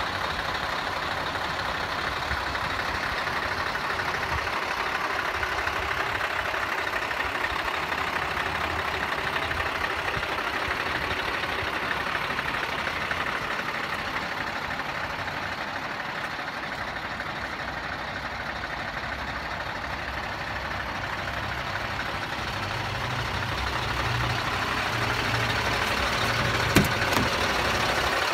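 Scania truck's diesel engine idling steadily under a constant hiss, its low rumble growing louder in the last few seconds; a single sharp click near the end.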